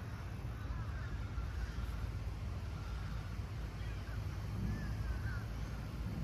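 Outdoor ambience by a still canal: a steady low rumble that wavers in level, with faint bird calls chirping now and then above it, including a few near the end.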